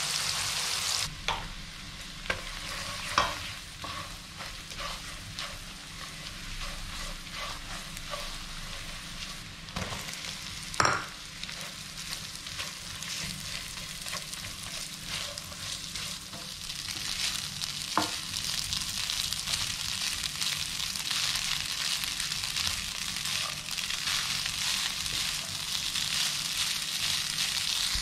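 Chili, garlic and shallot paste sizzling in a non-stick wok, then cooked rice stir-fried in it with a silicone spatula: a steady frying hiss with many light clicks of the spatula on the pan and two sharper knocks. The sizzle grows louder in the second half as the rice fries.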